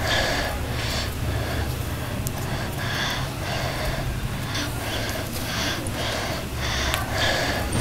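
A person breathing quickly and heavily, short breaths about two a second, over a steady low hum.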